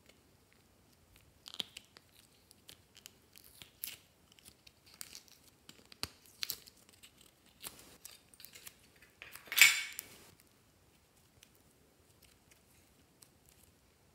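Soft modeling clay squeezed, stretched and pulled apart by hand: scattered small crackles and clicks, with one louder tearing crackle lasting about a second near ten seconds in.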